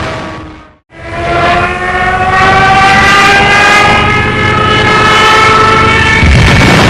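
Junkers Ju 87 Stuka's wind-driven "Jericho trumpet" dive siren wailing over engine noise. The pitch falls and dies away in the first second, then the siren starts again and climbs slowly in pitch for several seconds, with a louder rumble taking over near the end.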